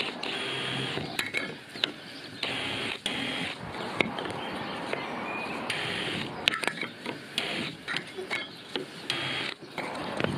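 DeWalt cordless drill running in several short bursts, each under a second, as it bores through a plate into hardwood decking, with clicks and knocks between the bursts.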